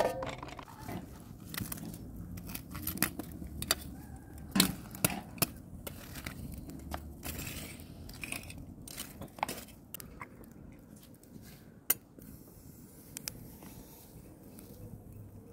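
Scattered metal clinks, knocks and scrapes: a hinged wire fish grill basket being handled and a metal poker raking the embers of a wood fire. The clicks are thicker in the first half and grow sparse toward the end.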